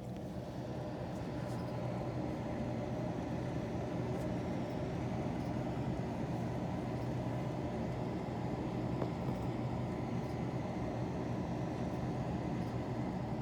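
A steady low mechanical hum with a rumbling noise beneath it, unchanging throughout.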